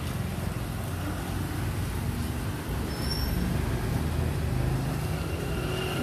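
Steady low rumble of motor vehicle engine noise, with a brief high chirp about three seconds in.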